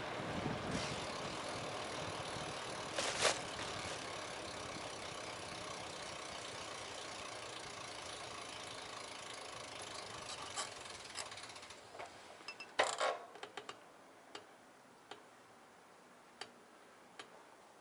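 Bicycle rolling along, with road noise and light rattling that fade away as it slows and comes to a stop. There is a sharp click about three seconds in, a quick cluster of clicks and knocks past the middle, and a few single ticks near the end.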